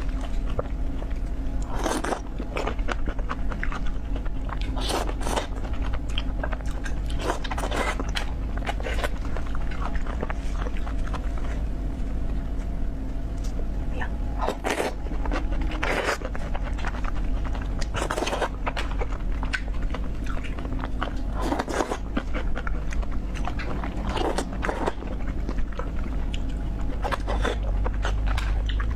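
Close-miked mouth sounds of a person eating marinated raw oysters: chewing, with irregular sharp clicks and smacks every second or so over a steady low hum.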